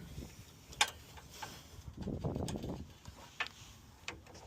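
A few separate light clicks and taps of hand tools on metal parts while bolts are being worked loose, with a short rustle about two seconds in.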